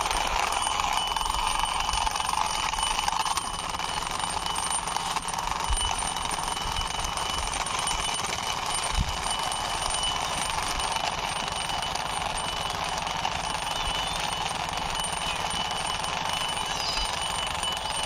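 Plastic push-along toy helicopter rolled by hand along a concrete ledge, its wheels and rotor gearing giving a steady, fast rattling whirr.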